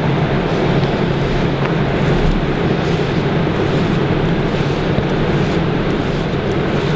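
Steady rushing drone with a low hum under it, unbroken and even.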